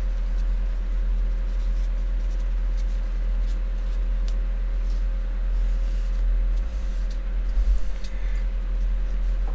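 Steady low hum throughout, with faint scratchy rubbing of a cloth wiping old thermal paste off the copper contact plate of a graphics card cooler.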